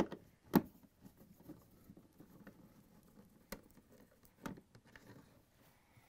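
1/4-inch nut driver backing out the screws of a refrigerator's rear access panel: faint scratchy ticking with three sharp clicks, the first about half a second in and two more near the middle and later.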